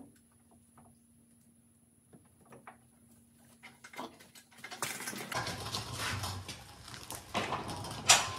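Lifting straps unhooked from a workshop engine crane with small clicks. From about halfway, the crane is wheeled away across the floor, its castors rumbling and its hook and fittings rattling, with one sharp metal clank near the end.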